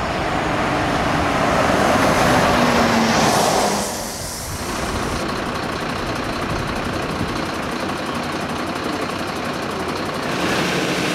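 A fire engine driving past, its engine and tyre noise swelling and then falling away about four seconds in. After that a steady engine noise from fire engines running at the scene.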